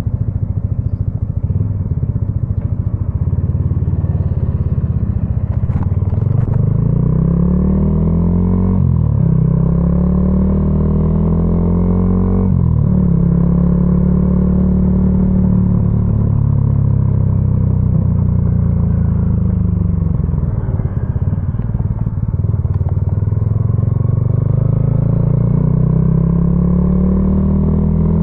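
Yamaha XSR155's 155 cc single-cylinder engine running through a homemade exhaust while riding. The note climbs and drops sharply at gear changes about nine and twelve seconds in, then holds steady. It falls away around twenty seconds in and climbs again near the end.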